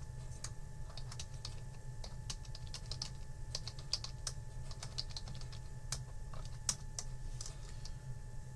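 Typing on a computer keyboard: irregular key clicks, several a second, over a faint steady hum.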